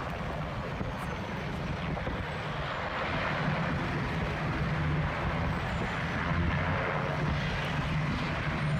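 Helicopter running: a steady engine and rotor noise with a low hum.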